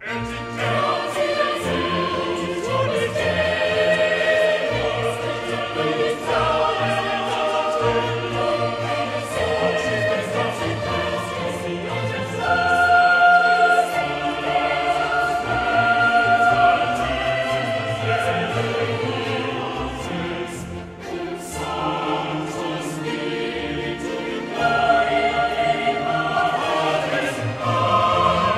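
Classical choral music: a choir singing long held notes, entering suddenly at the start.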